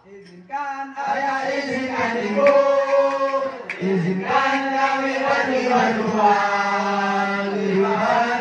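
A group of men chanting a devotional sholawat together without drums, holding long sustained notes; the voices come in about half a second in after a short lull and dip briefly near the middle.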